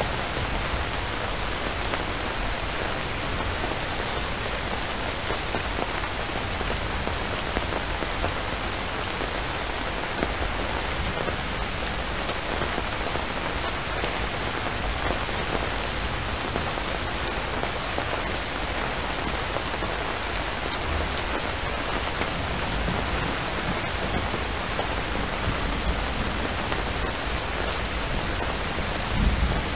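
Steady rain falling, an even hiss of many drops, with a brief low rumble near the end.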